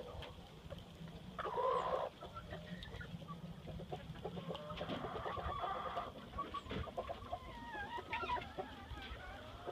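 Chickens clucking and calling, the loudest call about one and a half seconds in, over wind buffeting the microphone.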